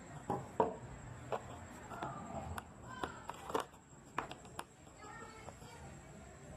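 Hand tools clacking and knocking against a hard plastic tool case as they are handled and set into its molded slots: several sharp, irregular clicks.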